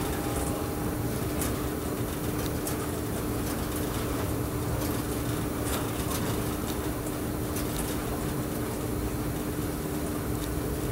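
An electric train running along the track, heard from inside its cab: a steady running noise with a constant hum and scattered light clicks.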